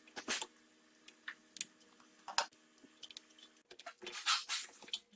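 Scattered light clicks and rustles of a plastic bracket being handled and hooked behind a car's plastic wheel-arch liner, busiest about four seconds in, over a faint steady hum.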